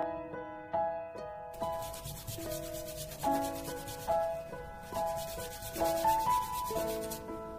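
Super Sculpey polymer clay doll hand being sanded on sandpaper: quick back-and-forth rubbing strokes that start about one and a half seconds in. Plucked background music plays throughout.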